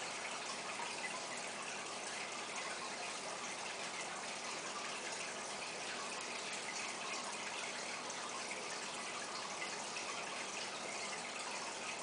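Water circulating in a 125-gallon aquarium, bubbling and splashing steadily at the surface.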